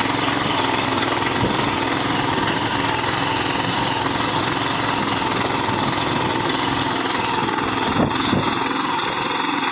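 7 hp petrol engine of a power weeder running steadily under load while its rotary tines till dry, stubbly soil. Two sharp knocks sound about eight seconds in.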